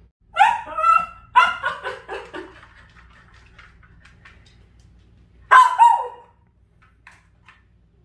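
Dachshund barking, a quick run of high yelping barks in the first two and a half seconds, then two more barks near six seconds.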